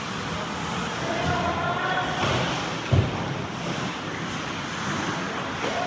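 Ice hockey game in a rink: steady skating and arena noise with players shouting, and one sharp thud about three seconds in, like a puck or body hitting the boards.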